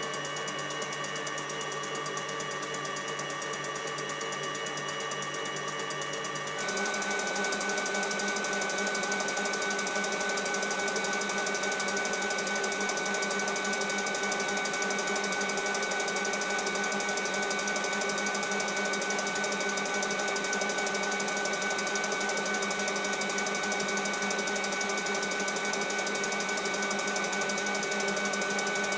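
Electric mixer whipping egg whites into meringue, its motor running with a steady whine. About six seconds in, it steps up to a higher speed and gets louder and higher in pitch.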